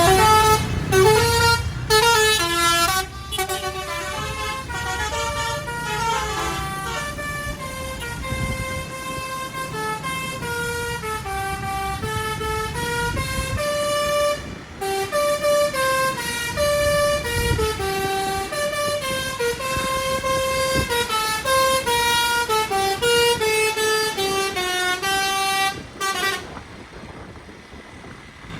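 Basuri 'telolet' musical bus horn playing a melody of quick stepped notes, breaking off briefly about halfway through and stopping a couple of seconds before the end. A low rumble sits under the first few seconds.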